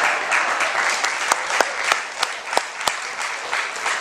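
Audience applauding: a dense patter of clapping, with several sharp single claps standing out in the middle.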